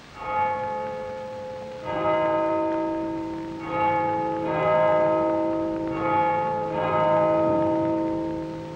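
Church bells ringing: about six strikes from at least two bells of different pitch, roughly every one to two seconds. Each strike rings on and overlaps the next.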